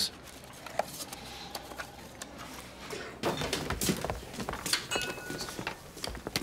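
Restaurant clatter of dishes and cutlery clinking and knocking. It picks up about three seconds in, with a few short ringing clinks.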